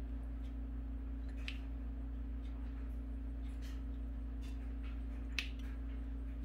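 Metal spoon tapping and scraping against a glass jar and the pan as chili garlic oil paste is spooned in: scattered light clicks, the sharpest about five seconds in, over a steady low hum.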